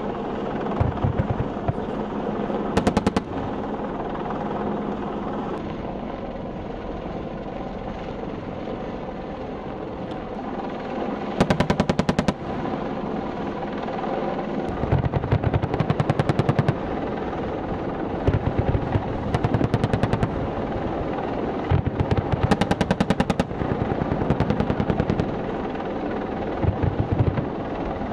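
An AH-64 Apache's 30 mm chain gun firing repeated bursts of rapid shots, about eight bursts of up to two seconds each. A steady helicopter rotor and engine sound runs underneath.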